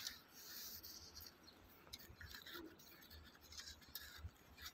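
Cross-country skis and poles scraping and crunching in snow, faint and irregular.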